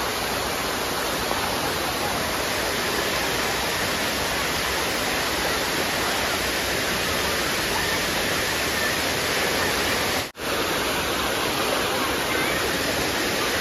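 Steady rushing of falling water from the Sai Yok Noi waterfall. It cuts out for an instant about ten seconds in, then carries on unchanged.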